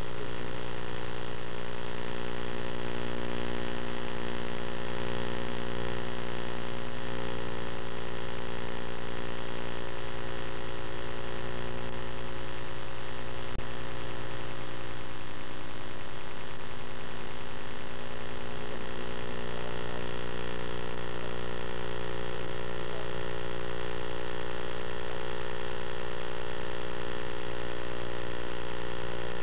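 A steady hum with many evenly spaced overtones, unchanging in pitch and level.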